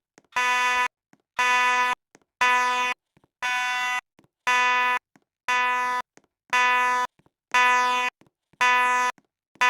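Fire alarm beeping steadily: about ten identical half-second beeps, one a second, each a buzzing electronic tone.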